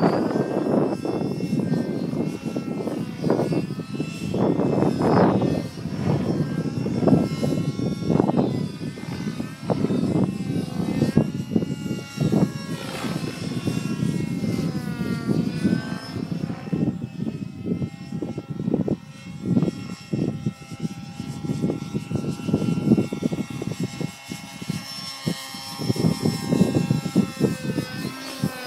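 Glow-fuel (nitro) model helicopter engine running with its rotor, its pitch rising and falling as the throttle changes.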